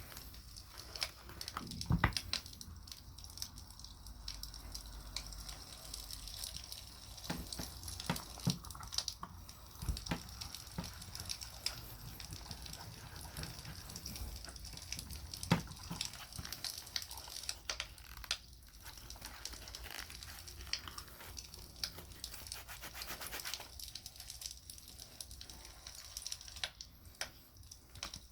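Campfire crackling with scattered sharp pops, mixed with the scratchy rubbing of beeswax being worked into a leather knife sheath.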